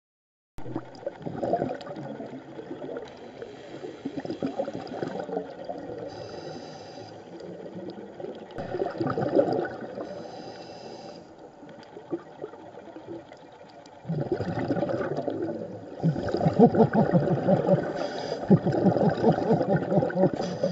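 Scuba regulator breathing heard underwater: a couple of short hissing inhalations and gurgling bursts of exhaled bubbles, the bubbling louder and more continuous over the last several seconds.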